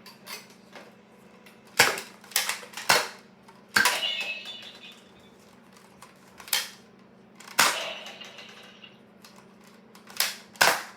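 Nerf blasters firing foam darts at targets: about nine sharp snaps at uneven gaps, a few followed by a short ring.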